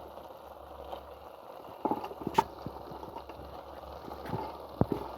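A few scattered sharp knocks and taps, the loudest about two and a half seconds in, over a steady low hiss.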